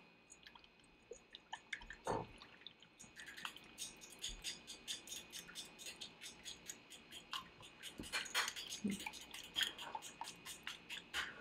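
A fork beating an egg into sweetened milk in a glass bowl: quick clicks of the fork against the glass through the liquid, sparse at first and then settling into an even rhythm of about five a second.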